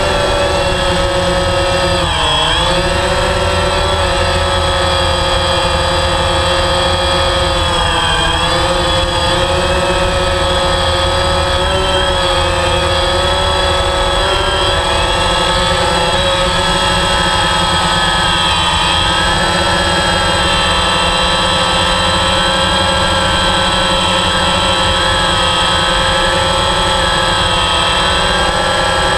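DJI Phantom 3 quadcopter's four electric motors and propellers running steadily, heard up close from the drone itself. The pitch dips briefly a few times, most clearly about two and eight seconds in, as the motors change speed.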